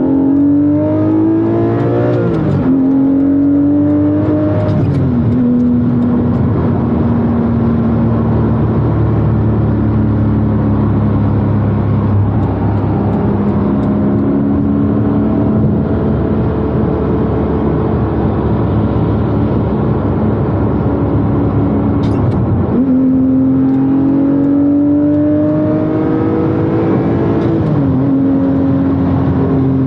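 Porsche 718 Cayman GTS's 4.0-litre flat-six through a SOUL valved exhaust, heard from inside the cabin. It pulls up through two upshifts in the first few seconds, then cruises steadily. About three-quarters through, its pitch jumps up on a downshift, climbs under acceleration and drops again on an upshift near the end.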